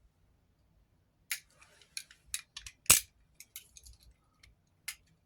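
A string of sharp clicks and snaps from a DeWalt utility knife being handled, with the loudest snap about three seconds in.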